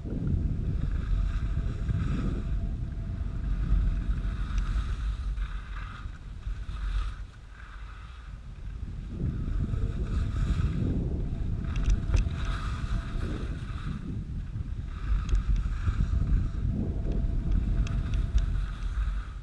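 Wind rumbling over the microphone of a camera on a fast slide down a snowy slope, mixed with a hiss of snow scraping underfoot that swells and fades every second or two. It eases briefly about seven seconds in.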